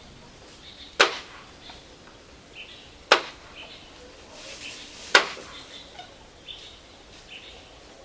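Three sharp strikes about two seconds apart, each dying away quickly, like a tool hitting something hard.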